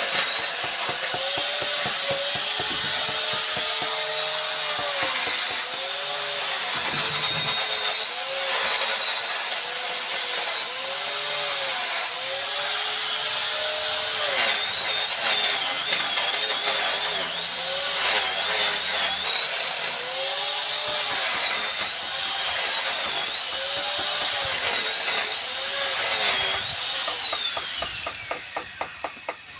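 Small handheld electric power carving tool whining as it cuts wood, its pitch sagging and recovering again and again as the bit is loaded into the cut and eased off. Near the end it is switched off and the pitch falls as it spins down.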